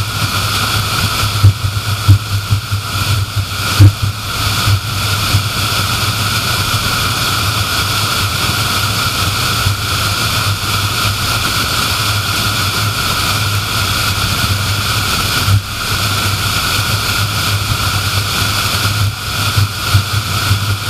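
Car driving at highway speed: a steady rush of road and wind noise with a low hum, broken by a few brief thumps in the first few seconds and again near the end.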